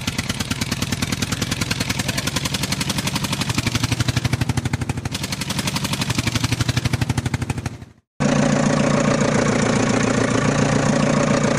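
Engine sound effect: an engine chugging with rapid, even pulses, which cuts off abruptly about eight seconds in. A different, steadier engine recording idling follows straight after.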